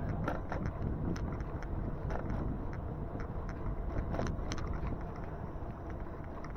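Steady low rumble of wind and road noise while riding an e-bike in the rain, with scattered sharp clicks and ticks throughout.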